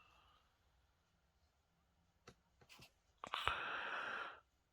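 Light clicks from handling a vintage metal safety fountain pen, a few of them from about two seconds in, followed near the end by about a second of soft hiss.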